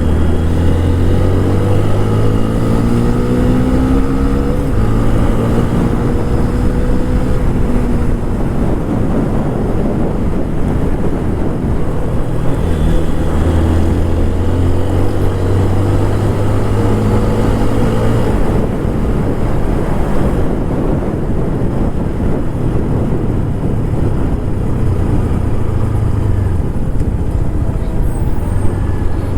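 TVS Apache RTR 160 4V's single-cylinder engine on its stock exhaust while riding, the engine note climbing in pitch under acceleration several times, over heavy wind and road rumble on the microphone.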